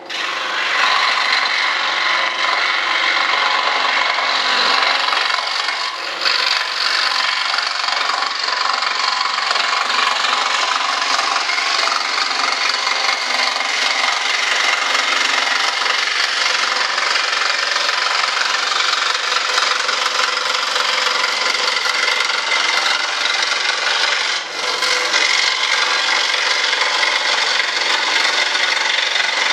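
Bench power saw running and cutting through a model jet's wing panel: a steady cutting noise, dipping briefly about 24 seconds in.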